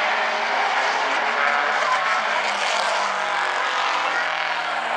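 A field of Bumblebee-class race cars running laps together, many engines at once making a steady, dense drone.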